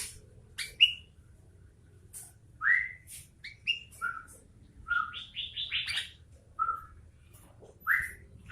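Sooty-headed bulbul (kutilang) singing in short, separate phrases with sliding notes, and a quick run of about six notes about five seconds in.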